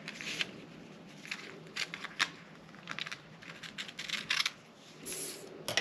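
Paper sewing pattern being handled and cut with scissors: a string of short, irregular, crisp paper rustles and snips.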